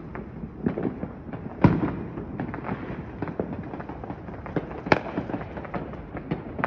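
Fireworks and firecrackers popping in quick, irregular succession, with one loud bang a little under two seconds in and another near five seconds.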